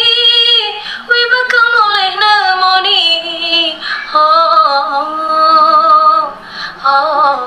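A woman singing solo, in Javanese, in long held notes with vibrato, with short pauses for breath between phrases.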